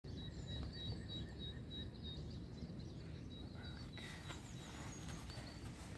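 Small birds chirping, a run of short high notes repeated a few times a second and a few higher gliding calls, over a steady low outdoor rumble.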